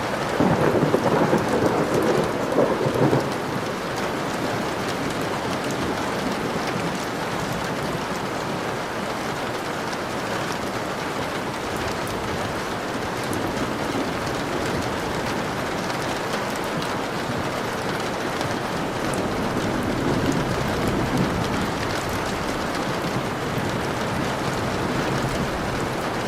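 Steady rain falling, with a peal of thunder rumbling for about three seconds at the start and a fainter rumble of thunder about two-thirds of the way through.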